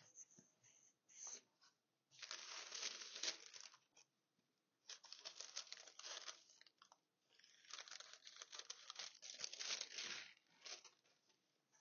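A large translucent overlay sheet rustling and crinkling as it is lifted and laid back over a fabric collage, in three stretches of a second or more each: one about two seconds in, one around five seconds in, and a longer one after seven seconds. A few faint clicks and taps sit in the gaps.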